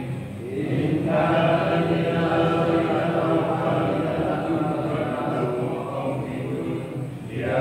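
A group of men chanting Islamic prayers together in unison, with a short pause for breath near the start and another near the end.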